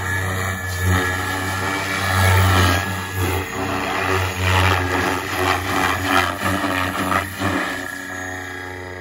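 SAB Goblin Kraken RC helicopter's three-blade main rotor buzzing as it flies past, the sound swelling and dropping in pulses of about a second as it manoeuvres, then growing quieter near the end as it moves away.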